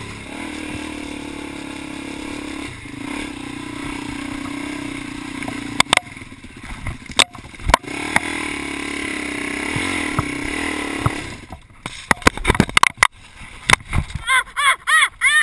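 Single-cylinder four-stroke dirt bike engine running under throttle over a rough, rocky trail, with sharp knocks and clatter from about six to eight seconds in. Near the end the engine note falls away under a quick run of knocks and scrapes.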